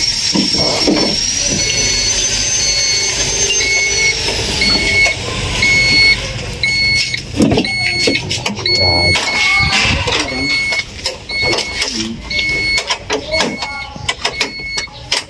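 An electronic beep repeating about once a second, over a high steady whine that rises in pitch and then drops away about four seconds in.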